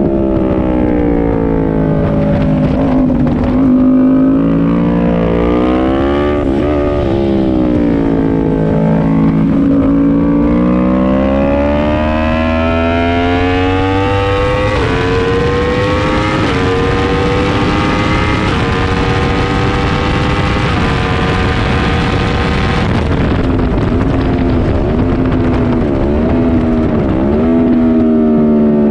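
Yamaha sportbike's inline-four engine heard onboard at track pace: revs fall and climb through the corners, then pull up through a string of upshifts with a step down in pitch every couple of seconds. Near the end the revs drop under braking with quick downshift blips, and wind rush rises with speed.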